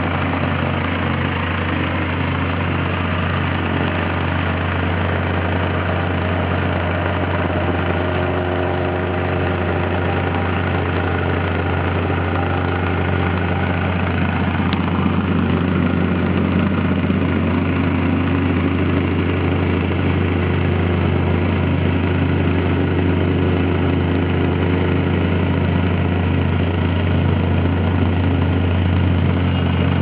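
Masterpac vibratory plate compactor's engine running steadily, a constant low hum under the engine drone, getting slightly louder about halfway.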